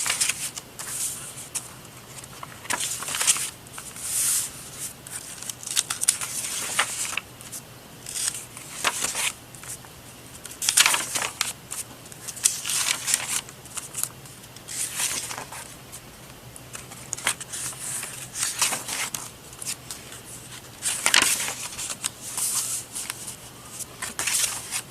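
Sheets of journal paper rustling and sliding as they are handled and laid together, in short swishes every second or two.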